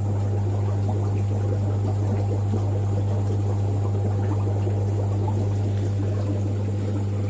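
Steady low electric hum of fish-room pumps with a constant bubbling, trickling water sound over it.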